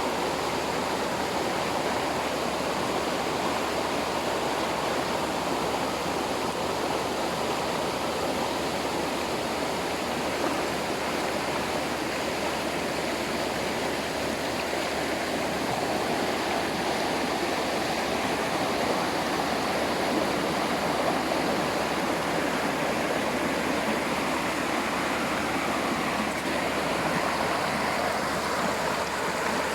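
Waterfall and stream water rushing steadily over rocks, a constant, even roar of falling and flowing water.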